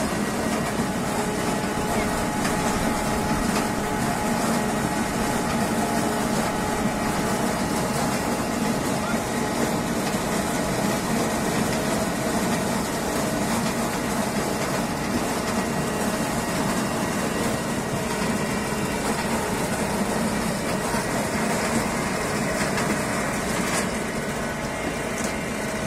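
A tractor-driven mobile apple press running: the tractor engine turns the press through its PTO shaft, giving a steady, even machinery drone of engine, drive and grinder while apples are milled.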